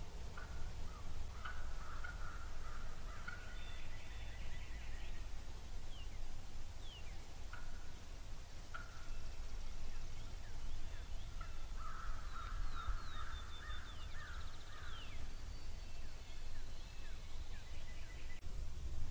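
Wild turkeys calling: several bursts of rapid, excited notes, the longest about two thirds of the way through, with thin high chirps in between.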